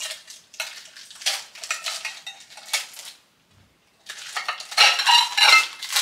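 Plastic packaging rustling as it is cut open and pulled off a stack of ceramic bowls. About four seconds in, the bowls clink against each other, the loudest part.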